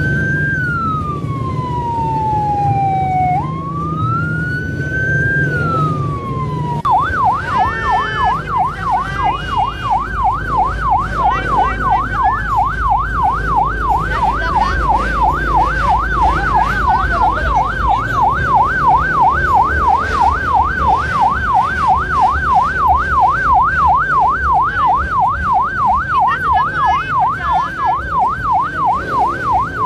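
Electronic siren sounding a slow rising-and-falling wail twice, then switching about seven seconds in to a fast yelp of two to three sweeps a second.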